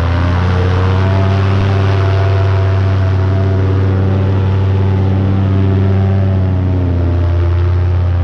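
Paramotor engine and propeller running at full throttle for takeoff and climb-out, a loud steady drone. The engine note shifts slightly about seven seconds in.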